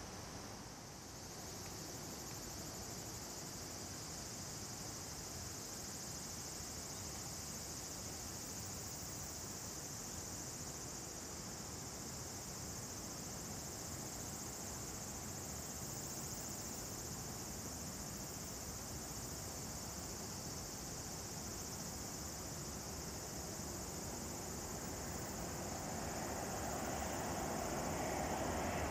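Steady high-pitched drone of insects in the summer grass, faint and unbroken. Near the end a low, broad aircraft engine sound swells in as the Boeing 787-8 approaches to land.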